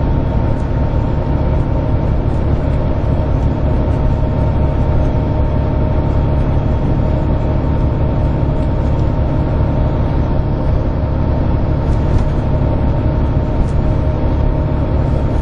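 Inside a Volvo B11RT coach cruising at steady speed: the engine and tyre and road noise drone evenly, with a thin steady whine on top.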